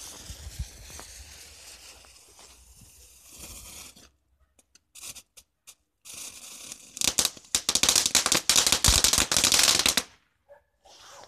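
A small ground firework: the lit fuse hisses and sparks for about four seconds, then after a few stray pops the charge goes off in a dense, rapid crackle of small bangs for about four seconds that stops suddenly.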